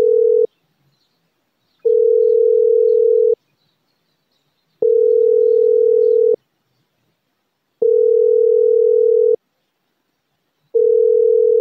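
Telephone ringback tone: a steady tone of about a second and a half that repeats every three seconds, the sound of a call ringing on the line with no one answering.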